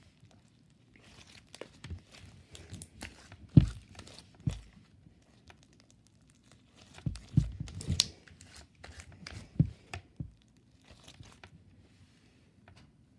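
Slime being squished, stretched and poked by hand, making irregular crackling and popping sounds. The loudest pops come about three and a half seconds in and in a cluster a little past the middle.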